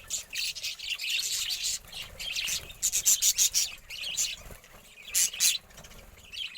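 Budgerigars chirping and chattering in quick, high-pitched bursts, with a brief lull in the second half.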